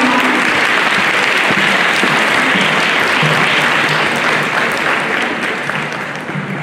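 A large crowd applauding, a steady dense clapping that begins to die down near the end.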